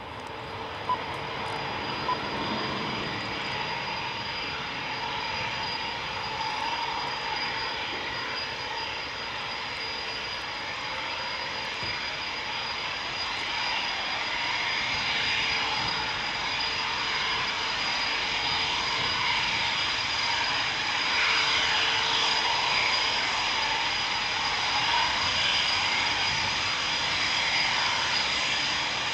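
Eurofighter Typhoon's twin EJ200 turbofan engines at taxi power: a steady jet whine over a rushing noise, growing gradually louder as the jet taxis closer.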